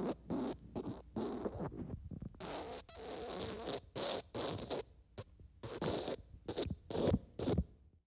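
Wet, diarrhea-style fart sound effect: a long run of short, irregular spluttering bursts that cuts off abruptly at the end.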